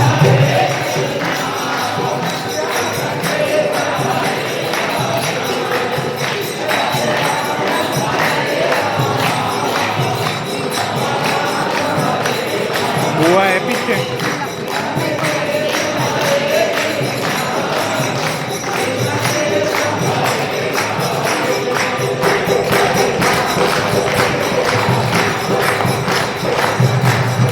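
Devotional kirtan: a group singing a chant over steady jingling hand percussion that keeps a quick rhythm.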